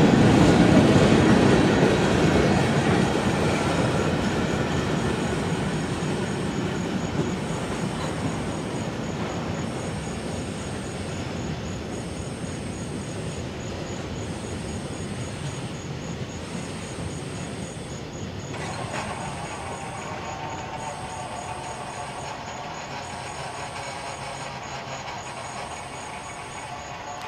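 Rear freight cars of a Norfolk Southern freight train rolling past a grade crossing and receding, their rumble fading steadily over the first several seconds. A faint, evenly repeating signal sound runs underneath, and a new steady tone comes in about two-thirds through.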